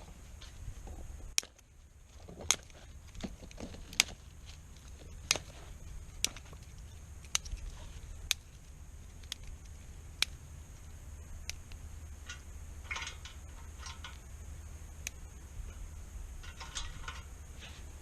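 Kindling catching in a Biolite wood-burning camp stove: sharp, irregular pops and crackles, roughly one a second, with a couple of brief rustles near the end.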